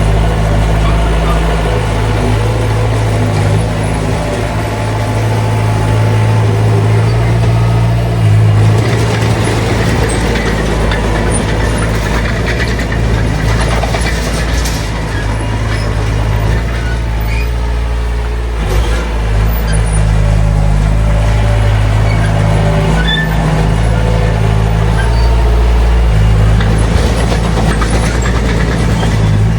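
Heavy diesel engine of an earthmoving machine running hard, a steady low drone whose pitch shifts now and then as the throttle changes.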